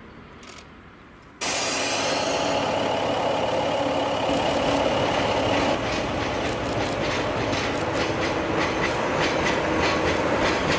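Faint background for about a second and a half, then the sudden loud running of a DE10 diesel locomotive moving along the track. From about six seconds in, a rapid clatter of wheels over the rails joins the engine.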